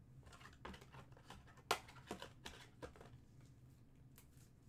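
Trading cards being handled and flipped through: faint rustles and small sharp clicks, the clearest a bit under two seconds in, over a faint steady hum.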